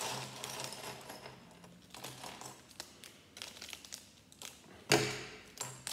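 Scissors snipping open a small plastic bag of Lego pieces, with light crinkling of the plastic and small clicks, and one sharp click about five seconds in.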